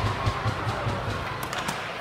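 Ice hockey game sounds in an arena: a steady hubbub with a low pulsing rumble, and a few sharp knocks about a second and a half in.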